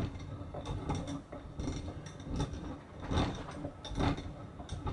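Parkside cast-iron bench vice being wound open by its handle: the steel spindle and sliding jaw turn with metal clicks and rattles, and a louder knock comes about once a second.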